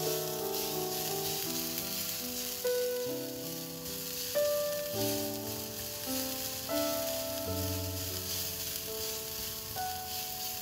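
Chopped shallots and garlic sizzling as they fry in hot oil in a pan, stirred with a silicone spatula. Background music plays with them.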